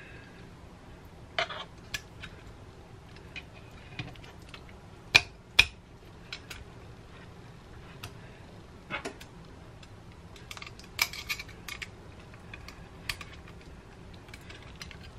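Metal rotisserie spit and fork clicking and clinking against each other and the metal baking sheet as the fork is slid onto the spit and fitted. The clicks are scattered, with two sharper clinks about five seconds in and a quick run of clicks near eleven seconds.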